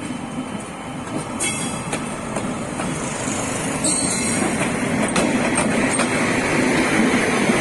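D20E diesel-electric locomotive passing close by, its rumble growing steadily louder as it nears, with sharp clicks from the wheels over the rails and two short high-pitched squeaks about one and a half and four seconds in.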